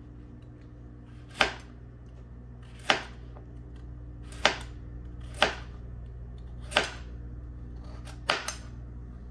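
A kitchen knife cutting carrots into large chunks on a cutting board: single sharp knocks about every one to one and a half seconds, seven in all, the last two close together. A steady low hum runs underneath.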